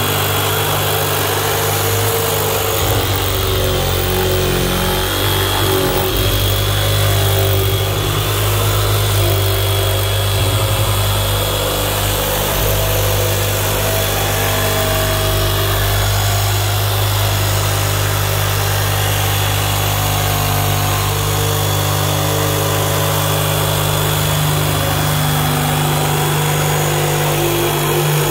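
Porter-Cable corded jigsaw running steadily, its blade sawing through the plastic top of a 55-gallon drum.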